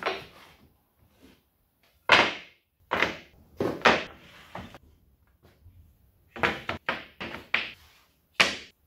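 Formply (film-faced plywood) offcut strips being handled and set down on a workbench: wood knocking and clattering against wood in a string of sharp knocks, with a lull about halfway through.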